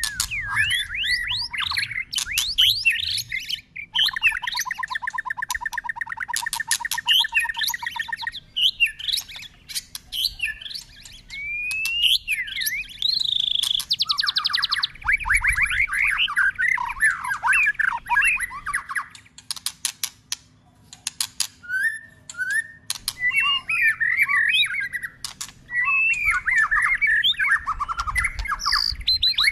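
White-rumped shama singing a long, continually changing song of loud whistled phrases and gliding notes. A buzzing rattle starts about four seconds in and lasts about four seconds, and there are several runs of sharp clicks. The song goes quieter for a few seconds about two-thirds of the way through.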